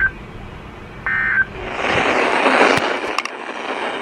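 The last two of three short, buzzing data bursts of an Emergency Alert System end-of-message code, a little over a second apart, the last ending about a second and a half in. A loud hiss of noise with a few sharp clicks follows.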